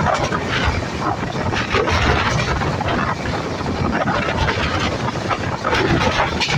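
Passenger train coach running at high speed, about 130 km/h: a steady rush of wheels on rails with wind on the microphone at the open door, and a few sharp clacks near the end.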